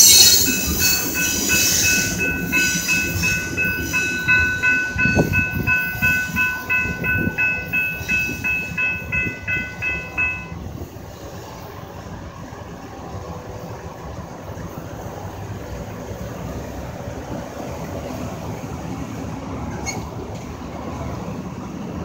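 Freight train's covered hopper cars rolling over the rails through a grade crossing, the rumble fading as the end of the train passes, while the crossing bell dings about twice a second. About ten seconds in the bell stops as the train clears, leaving low steady road noise.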